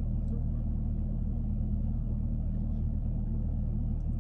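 Steady low hum of a car idling, heard from inside the parked car's cabin.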